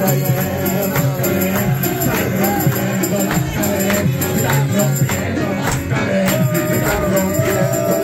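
Live praise music: a man singing through a microphone over amplified accompaniment with a steady bass beat, and a hand tambourine jingling in rhythm.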